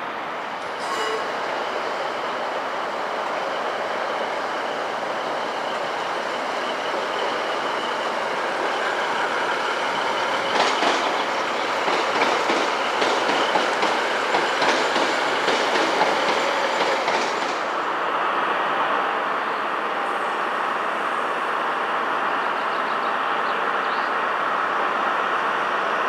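Train moving along the rails with a steady running noise. Through the middle there is a spell of irregular wheel clicks over rail joints, which ends suddenly.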